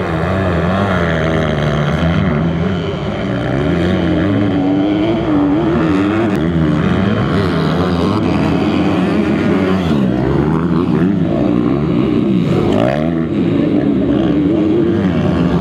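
Motocross dirt bike engines racing, more than one bike at once, their pitch rising and falling over and over as the riders work the throttle and shift through the corners.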